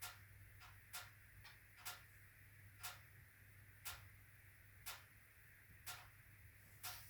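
HWAM Wiking Mini 2 wood-burning stove making sharp ticks about once a second, with fainter ticks in between, during its burn cycle. The owner thinks the bi-metallic coil spring of the automatic air control is hitting a mechanical stop.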